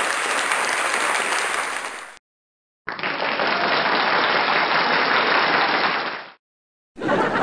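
Audience applauding, a dense steady clatter of many hands, in spliced stretches broken twice by a sudden gap of dead silence about half a second long.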